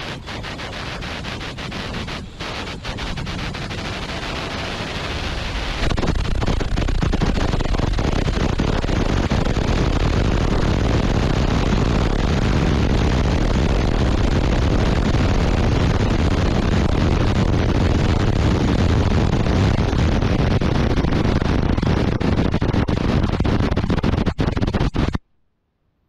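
Onboard microphone recording from a Varda Space capsule during atmospheric reentry: a loud, steady rushing noise of the capsule tearing through the upper atmosphere. It grows louder and heavier in the bass with a sharp step about six seconds in, then holds until it cuts off abruptly near the end.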